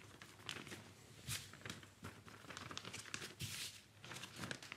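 Clear plastic sheet crinkling and rustling in irregular swishes as gloved hands press and knead a sticky mix of plastic binder and Bengal-fire powder beneath it.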